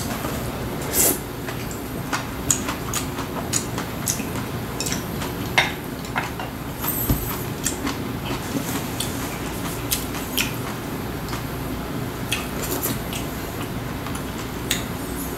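Eating sounds: chewing braised mackerel and kimchi, with scattered light clicks of metal chopsticks against ceramic bowls, over a steady low hum.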